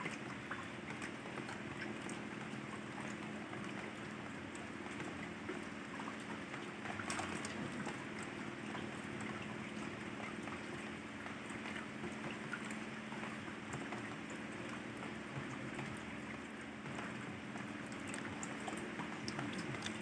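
Steady watery noise with scattered light ticks, over a low steady hum.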